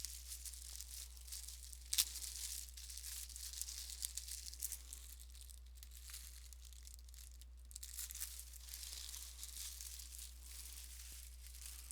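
Plastic packaging crinkling and tearing as a folded T-shirt is unwrapped, with a continuous crackle of small ticks and one sharper snap about two seconds in.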